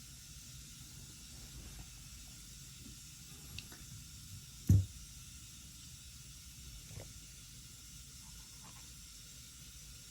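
Steady hiss, with one sharp knock a little before halfway and a few faint taps.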